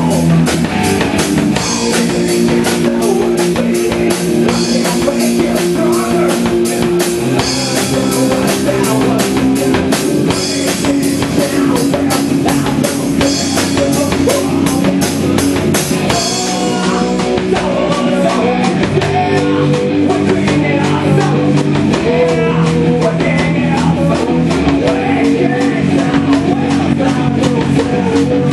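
Live rock band playing: electric guitars holding chords over bass and a drum kit. Dense, steady cymbal hits ride over the band at first and thin out about halfway through.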